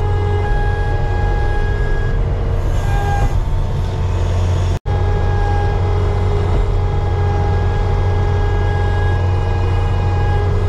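Skid steer loader engine running steadily under load while scraping manure out of the free stalls, with a steady whine over the engine drone. There is a momentary dropout near the middle.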